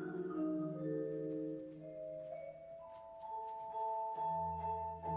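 Percussion orchestra of marimbas and vibraphones playing a slow, sustained melodic passage of ringing mallet notes. The sound thins out through the middle, then low bass notes come in about four seconds in and it grows louder.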